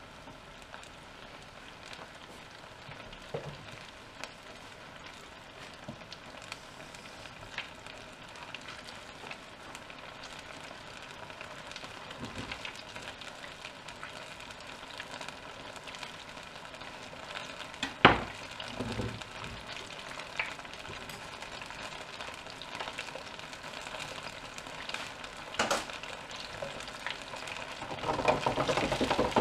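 Tempura-battered banana pieces frying in the oil of an electric deep fat fryer: a steady sizzling crackle with scattered small pops. A single sharp knock about two-thirds of the way through, and the frying grows louder near the end as the fryer basket handle is taken.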